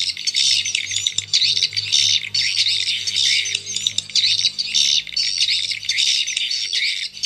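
Recorded swiftlet calls, a lure sound for a swiftlet nest house, played loud through a pair of horn tweeters: dense, continuous high-pitched twittering and chirping.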